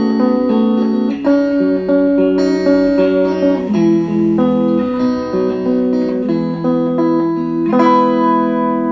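Intro music: a guitar playing a melody over held chords.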